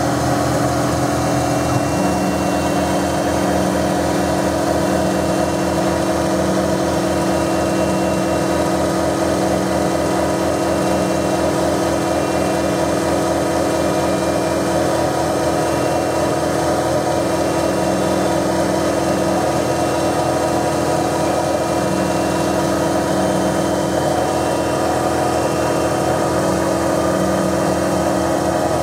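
Denford Novamill CNC milling machine running steadily, its spindle and axis motors driving a small end mill that cuts around the edge of a brass name plate. The low hum shifts about two seconds in.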